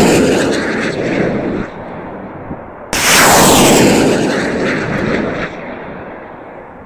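Damba self-propelled rocket launcher firing: the roar of one launch dies away, then a second sudden blast comes about three seconds in, its roar fading slowly over the following seconds.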